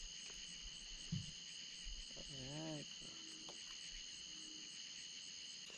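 Steady high chorus of crickets, faint. A soft knock comes about a second in, and a short low wavering sound comes about two and a half seconds in.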